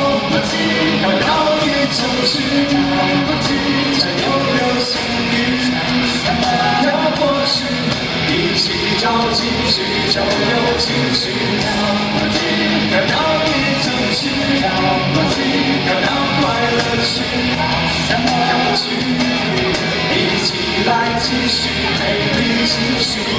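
Live concert performance of a Mandarin pop song: a male singer singing over loud band music with a steady beat.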